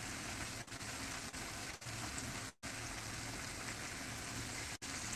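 Breaded chicken pieces sizzling in hot oil in a frying pan: a steady, even hiss, cut by a few brief dropouts in the audio, the longest about two and a half seconds in.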